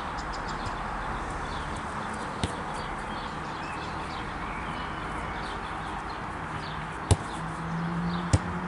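A football being kicked on an artificial-turf pitch: sharp thuds of the ball about two and a half seconds in and twice near the end, the first of these two the loudest, over steady outdoor background hiss with faint high chirps.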